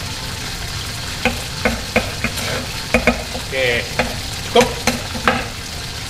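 Chicken livers and gizzards frying in hot oil with a steady sizzle, under about ten irregular knife chops on a wooden cutting board as raw chicken is cut up.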